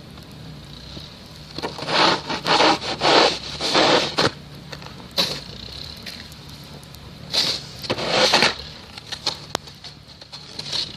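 Repeated short scraping sounds in two clusters, about two seconds in and again about seven seconds in, over a faint steady low hum.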